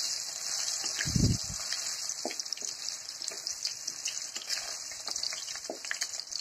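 Cubed potatoes sizzling in hot mustard oil in a metal kadhai, with a steady frying hiss. A spatula scrapes and taps against the pan as they are stirred, and there is a dull thump about a second in.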